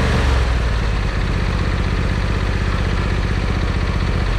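An engine running steadily at low revs, its note shifting slightly shortly after the start.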